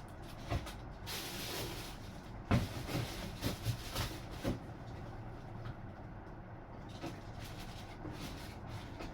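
Packaging rustling for about a second, then a handful of light knocks and clacks as model parts are handled and set down, over a steady low hum.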